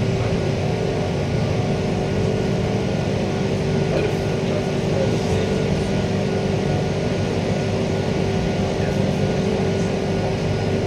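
Interior running noise of a Queensland Rail EMU electric multiple unit under way: a steady rumble of wheels on rail and a low hum, with a constant whine from the traction equipment.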